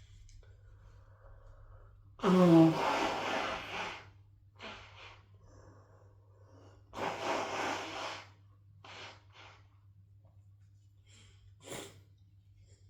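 A person with a head cold blowing their nose hard twice: a long noisy blast about two seconds in, the first opening with a brief voiced honk, and a second about seven seconds in. Short sniffs fall between them and near the end.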